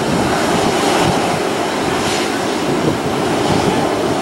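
Jet engines of a taxiing Delta Boeing 737 at low taxi power, a loud, steady rumbling noise.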